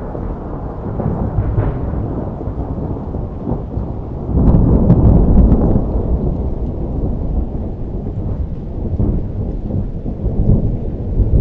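Thunder rumbling on and on from a thunderstorm. It swells to its loudest peal about four seconds in and builds again near the end.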